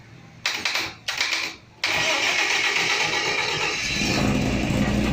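Gas-fuelled generator's 5K engine being cranked by its electric starter: two short bursts, then a longer steady crank, and the engine catches about four seconds in and runs with a low rumble.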